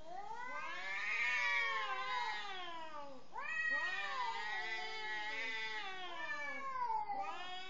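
Two cats caterwauling at each other in a standoff: long, wavering yowls that rise and fall in pitch and overlap. One yowl gives way to a fresh one about three seconds in. These are the drawn-out threat calls of cats squaring up.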